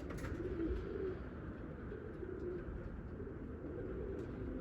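Several domestic pigeons cooing, a continuous low warbling, over a steady low background rumble.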